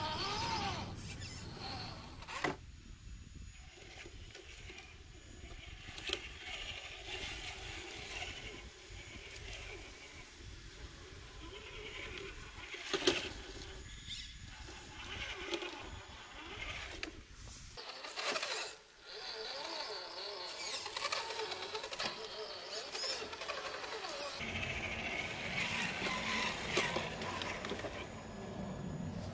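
Traxxas TRX-4 scale RC crawlers' electric motors and gears whining as they creep over rock, the pitch wavering with the throttle, with a few sharp knocks of the trucks against the stone.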